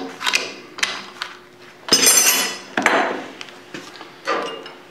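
Steel hand tools clinking and scraping against the change gears of a South Bend 10K lathe being taken apart: a string of sharp metallic clicks, with a longer ringing rattle about two seconds in.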